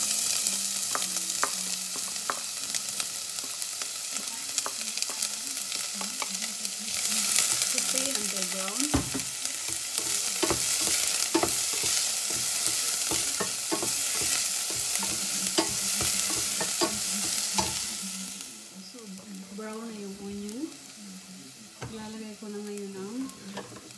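Chopped onion sizzling in hot oil in a stainless steel pot, starting sharply as it is tipped in, while a wooden spoon stirs it with scattered knocks and scrapes against the pot. The sizzle dies down about three-quarters of the way through.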